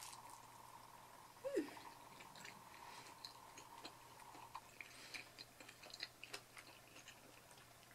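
Quiet chewing of a bite of cheeseless pineapple pizza, with faint soft mouth clicks and a short falling sound about a second and a half in.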